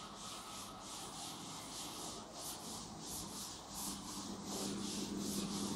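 White cloth wiping a chalkboard clean: quick back-and-forth rubbing strokes, about three a second.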